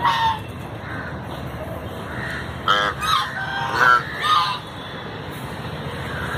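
Domestic geese honking: one short call right at the start, then a quick run of four honks between about three and four and a half seconds in.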